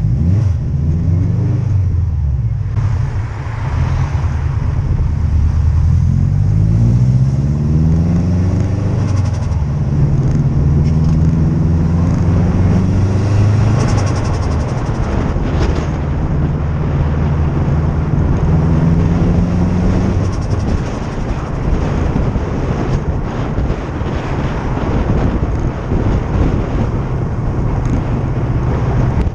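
Subaru Impreza WRX STi Type R's turbocharged flat-four engine pulling hard, its pitch rising twice near the start, then holding steady revs through the middle. The last third turns into a rougher, less tonal sound.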